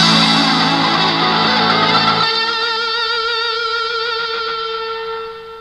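Stratocaster-style electric guitar played solo: a busy run of notes for about two seconds, then a single held note with vibrato that rings on and fades out.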